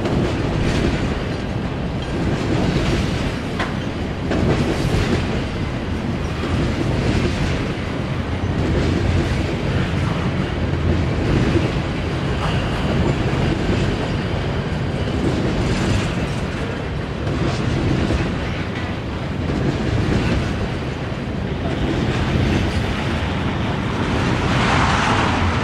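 A freight train of hopper cars rolling steadily past, with a continuous rumble and wheels clacking over the rail joints.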